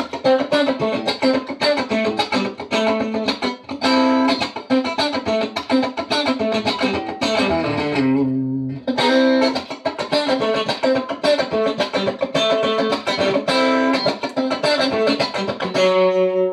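Electric guitar played through a Fender Excelsior tube combo amp with push-pull 6V6 power tubes: fast picked single-note lines, ending on a held chord.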